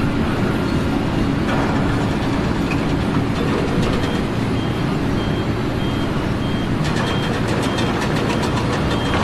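Heavy machine's engine running steadily, with a reversing alarm beeping at an even pace from about a third of the way in.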